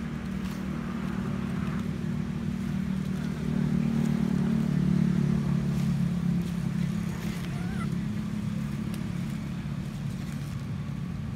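A motor vehicle's engine running steadily with a low hum, growing louder about a third of the way in and fading again, as if passing close by.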